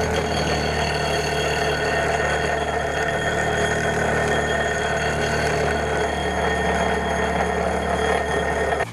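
Bench grinder running steadily, its wheel grinding steel off the mushroomed poll of an old axe head to remove the burr. The sound cuts off suddenly near the end.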